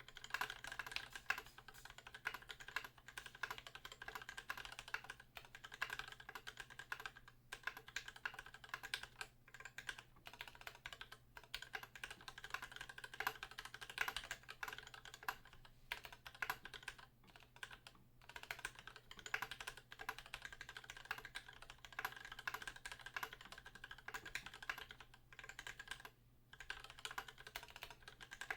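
Steady typing on an Idobao ID80 mechanical keyboard with Gateron Pink linear switches lubed with Super Lube, NK_ x Tai-Hao keycaps and an EVA foam case insert: quick, uneven keystrokes with a few short pauses.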